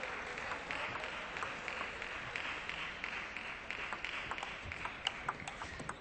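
Audience applauding, many hands clapping at once; the clapping thins out near the end.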